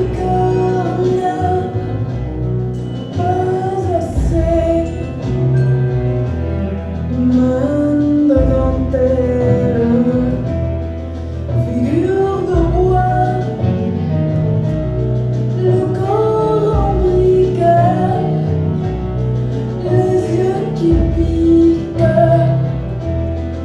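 Music: a slow song with a sung melody gliding between notes over long held bass notes, with no words made out.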